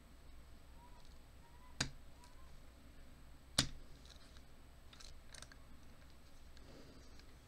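A steel lock pick and tension wrench working in the keyway of an American Lock 1100 series padlock: two sharp metallic clicks about two seconds apart, faint scraping and squeaks, and a few lighter ticks.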